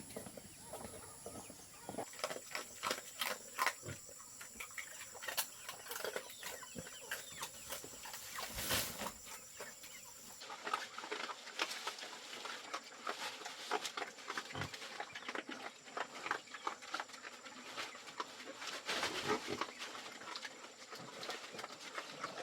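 Chickens clucking, mixed with many short clicks and rustling noises.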